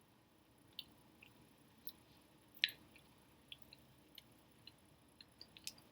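Faint wet mouth clicks and lip smacks of someone finishing a mouthful, close to the microphone, scattered irregularly with one louder smack a little under three seconds in.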